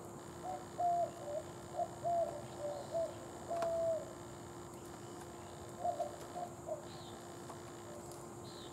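Eastern screech owl calling: a run of short notes, about two or three a second, ending on a longer note about four seconds in, then a few more notes about two seconds later.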